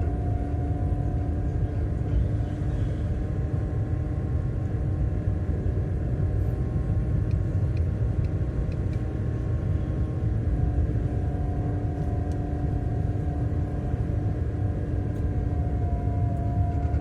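Steady low rumble of a car being driven, engine and road noise picked up by a dashcam's microphone, with a faint steady hum over it.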